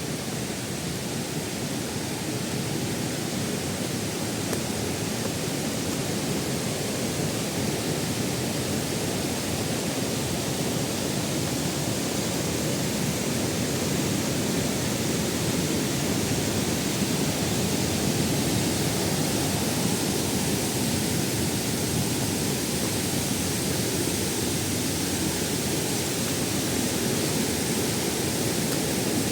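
Waterfall: water falling and rushing in a steady, even noise that grows slightly louder across the stretch.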